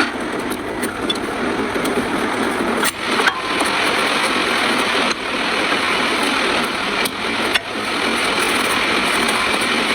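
Ford Taurus running, a steady even vehicle noise with brief dropouts about three, five and seven and a half seconds in.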